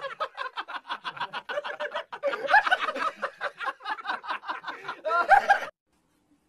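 Rapid staccato laughter: a fast string of short 'heh' bursts, about six or seven a second, that cuts off suddenly near the end.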